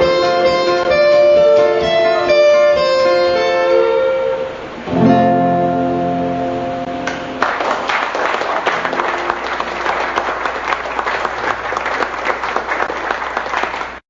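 Guitar music playing the last phrases of a song, ending on a final chord about five seconds in that rings out; audience applause breaks out about two seconds later and continues.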